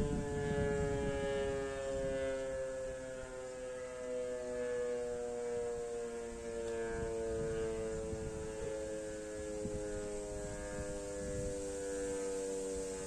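DS 977 motor-driven civil defence siren winding down after a test: one rich tone gliding slowly and steadily lower in pitch.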